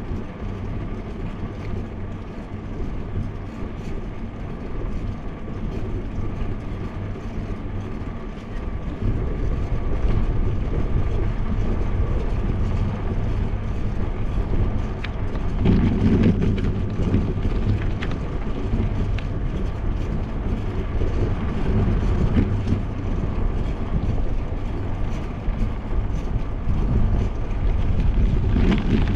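Wind rushing over a bicycle-mounted action camera's microphone, with the bike's tyres rumbling on cracked asphalt while riding; the noise grows louder about nine seconds in.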